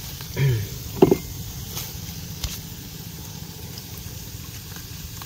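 An engine running steadily with a low hum, with two short vocal sounds from a person about half a second and a second in.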